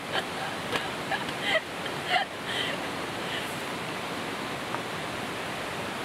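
Steady rushing of a mountain valley stream, with a few faint brief sounds in the first couple of seconds.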